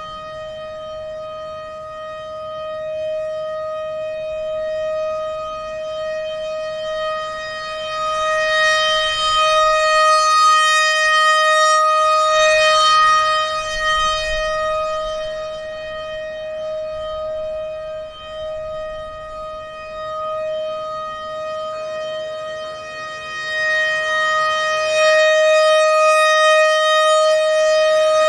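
ACA PN-20 outdoor warning siren sounding its steady Alert tone: one unwavering pitch with strong overtones, its loudness swelling and fading twice.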